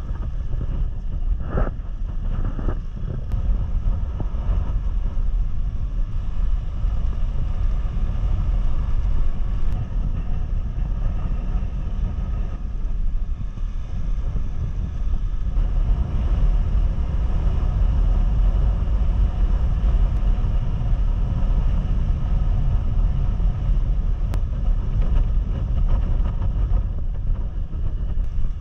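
Wind buffeting the microphone of a moving motorcycle, a steady low rumble, with the motorcycle's engine running beneath it.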